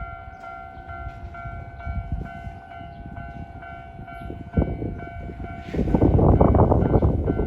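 Level crossing warning bell ringing in a steady repeating pattern; about six seconds in, a Keisei 3000 series electric train arrives and the loud rumble of its wheels on the rails takes over as it passes over the crossing.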